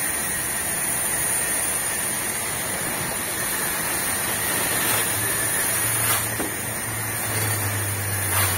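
Pressure washer jet hissing steadily as it sprays water onto a motorcycle's bodywork and wheel, with a low hum setting in about halfway through.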